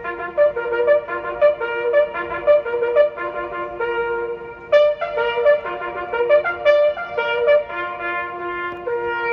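A lone brass instrument playing a bugle call, stepping among a few notes of the bugle's natural series in short accented notes about twice a second, then settling into a long held note near the end.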